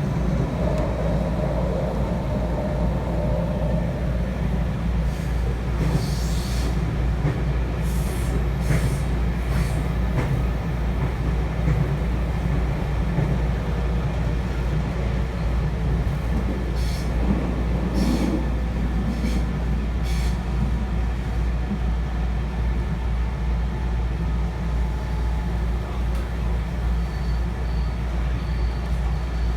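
Interior of a JR West 223 series 0-subseries electric train under way: a steady low rumble of wheels and running gear, with a few short sharp ticks now and then.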